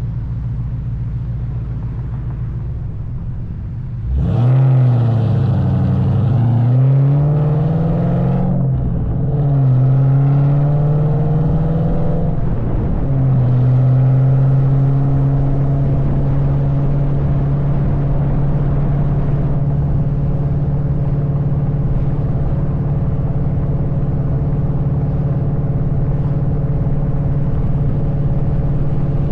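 2003 Ford SVT Cobra's supercharged 4.6-litre V8 through an SLP Loudmouth exhaust: a low rumble, then about four seconds in the engine opens up under hard acceleration, rising in pitch and shifting up twice. It then settles into a steady cruise.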